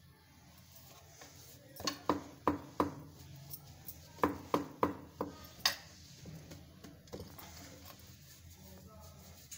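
Short sharp knocks and clicks while stuffed paratha dough is gathered and pressed by hand on a wooden rolling board, coming in two quick runs of about four and five.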